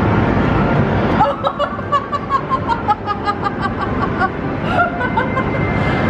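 Background music that cuts off suddenly about a second in, followed by a person laughing and giggling in short bursts.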